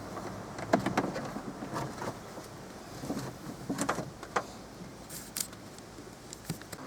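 Irregular clicks, taps and light rattles of small parts being handled as a car door's inside trim is put back together.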